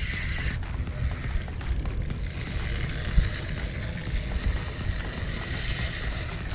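Wind rumbling on the microphone and water against a kayak's hull, under a faint, steady high whine. A single knock comes about three seconds in.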